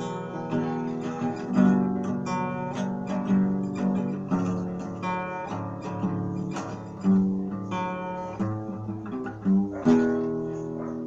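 Acoustic guitar music: plucked notes and strummed chords, ending on a chord struck about ten seconds in that is left to ring.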